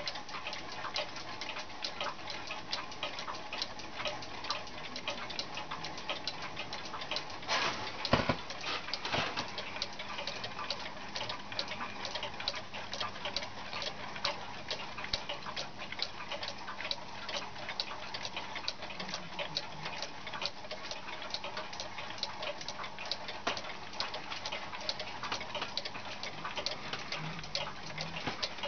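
Clocks ticking steadily, several overlapping ticks a second, with a brief louder noise about eight seconds in.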